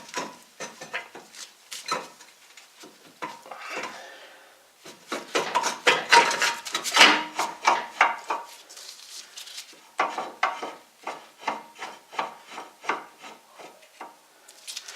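Metal brake and hub parts clinking and scraping as they are handled and fitted back onto the car's wheel hub. There is a dense flurry of knocks in the middle, then a run of quick, even clicks, about four a second, near the end.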